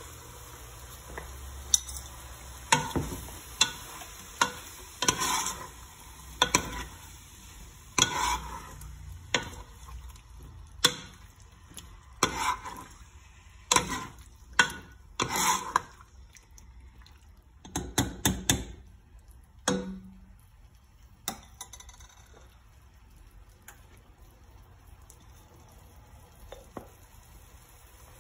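A metal ladle scraping and knocking against a stainless steel pot while stirring tofu, kimchi and onion frying in oil, over a low sizzle. The stirring stops about two-thirds of the way through, leaving the sizzle.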